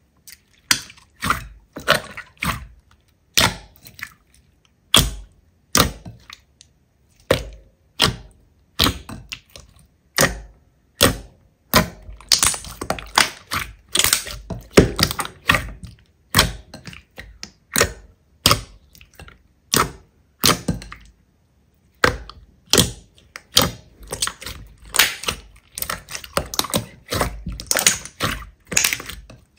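Slime being pressed and squeezed by hand, giving sharp pops and crackles at an irregular pace that crowd together about twelve seconds in and again near the end.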